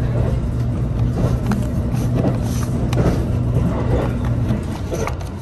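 A vehicle running with a steady low hum over a rumble, with scattered light knocks and clicks; the hum cuts off about four and a half seconds in.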